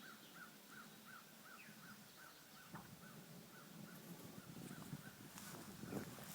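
Faint outdoor quiet with an animal chirping the same short call over and over, about three notes a second. The chirps fade after the first few seconds, and a few soft knocks come near the end.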